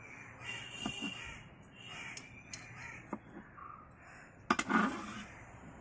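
Crows cawing in the background, a few harsh calls with the loudest about three-quarters of the way through. A few light clicks of a knife against a wooden cutting board come in between as the seeded core is cut out of a bell pepper ring.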